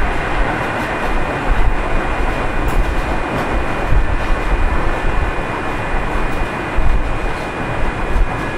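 Keio 7000 series field-chopper electric train running between stations, heard from inside car 7053. A steady rumble of wheels on rail, occasional low thumps, and a thin steady high whine.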